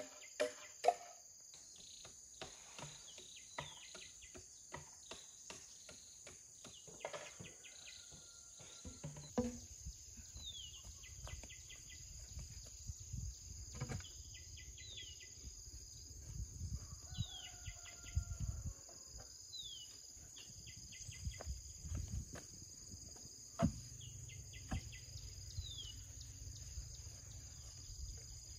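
Steady high insect drone, typical of cicadas or crickets, with a bird's short falling chirp repeating every couple of seconds and scattered sharp knocks and taps, thickest in the first few seconds.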